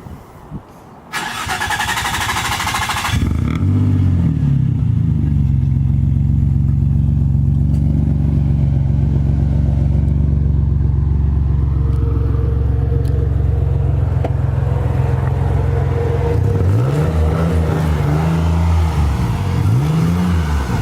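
Turbocharged Nissan 350Z's V6 being started: the starter cranks for about two seconds, then the engine catches with a brief rev flare and settles into a steady idle. Near the end it is revved twice, each rev rising and falling.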